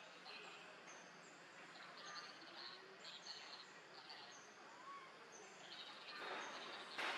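Faint outdoor ambience of small birds chirping: short high chirps repeat every half second to a second over a steady hiss. About six seconds in, a louder rush of noise comes up.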